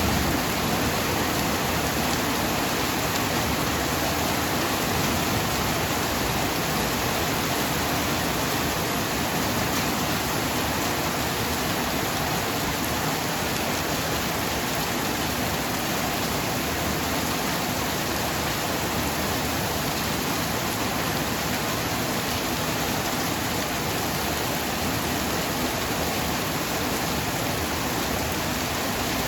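Heavy tropical downpour falling steadily: a dense, even hiss of rain with no thunder.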